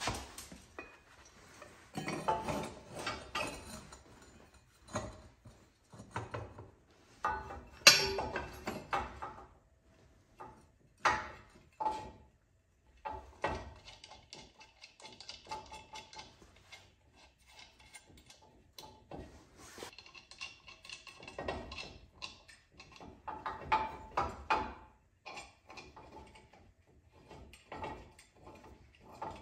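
Intermittent light metal clinks, knocks and rustling of hand work as a rubber air-ride bag and its steel mounting plate are handled and fitted onto a rear axle bracket, with the loudest knock about eight seconds in.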